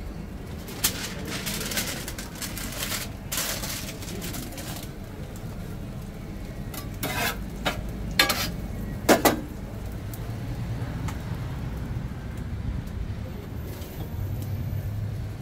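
Metal spatula knocking sharply on a steel griddle several times, with rustling and scraping before it and a low steady hum beneath.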